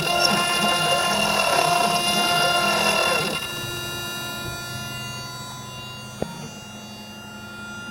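1.5 kW CNC router spindle milling aluminium: a steady high whine with a wavering cutting noise over it. About three and a half seconds in the cutting noise drops away and the spindle runs on more quietly and evenly. A single sharp click comes about six seconds in.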